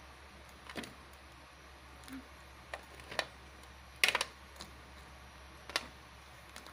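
Crab pieces cooking in a bubbling, foaming pan, with a few sharp pops and crackles spread out one at a time, the loudest a short cluster about four seconds in.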